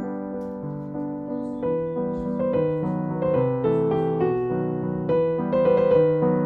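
Background piano music, slow chords at first and then a busier melody from about two seconds in.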